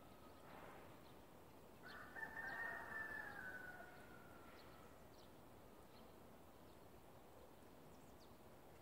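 A rooster crowing once, faint, in one drawn-out call of about two seconds that starts about two seconds in and sags in pitch at the end. A few tiny bird chirps sound against near silence.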